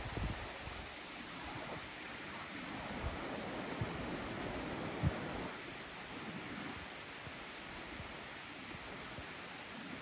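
Wind in the cloud-forest canopy, with low gusts buffeting the microphone over a steady high-pitched hiss.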